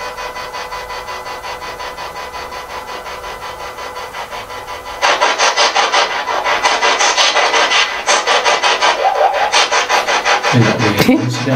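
Spirit box, a radio sweeping rapidly through stations, giving a fast, even, rasping chop of static over a few steady tones. It gets louder about halfway through, and a short lower sound cuts in near the end.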